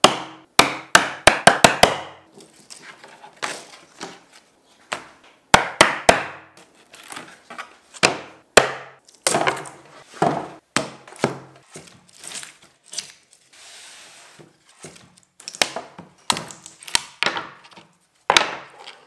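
A hammer tapping a hand tool set into the cut line of a CNC-cut PVC sheet, knocking the cut shapes free, in quick runs of sharp taps, the first about six strikes in a row. Between the runs, loose PVC pieces knock and clatter as they are lifted out.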